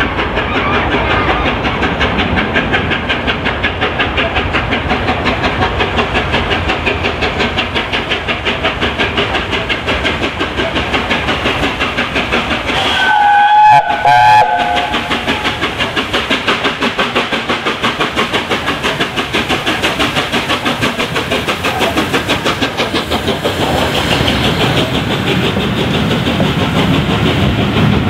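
Steam locomotive 60163 Tornado, a three-cylinder Peppercorn A1 Pacific, running at speed with a fast, even beat. About halfway through its whistle sounds in two short blasts, and near the end its coaches rush past with deeper wheel rumble.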